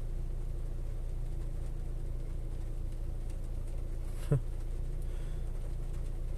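A Hyundai's engine idling steadily, heard from inside the cabin. There is one brief sharp sound about four seconds in.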